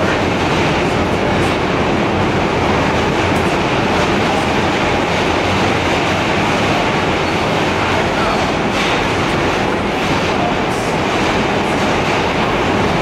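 New York City subway car running between stations, heard from inside the car: a steady loud rumble and rush of wheels on rail, with a few faint clicks.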